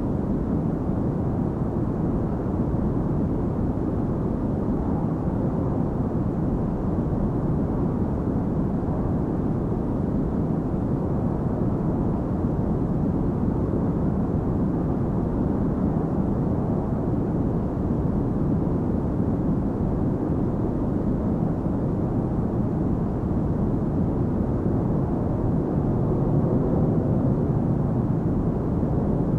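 Steady rushing cabin noise of a jet airliner in flight, a deep even roar of engines and airflow heard from inside the cabin.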